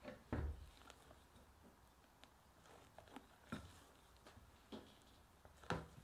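Silicone spatula folding meringue into egg-yolk batter in a glass bowl: a few soft knocks and scrapes against the glass. The loudest come about half a second in and just before the end.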